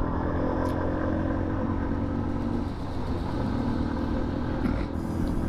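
Motorcycle engine running steadily under way, over a low rumble of wind and road noise.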